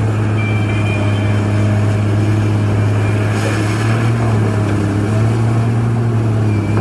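Steady, loud engine-like drone with a strong low hum that does not change, like a heavy machine's engine running.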